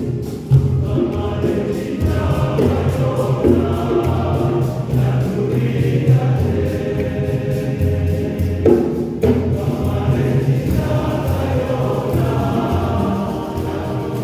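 Church choir singing, with many voices together over a steady beat.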